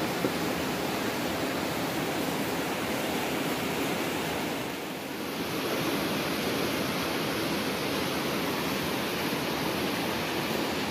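A steady rushing hiss with no pitch to it, dipping briefly about halfway through. There is one small tick just after the start.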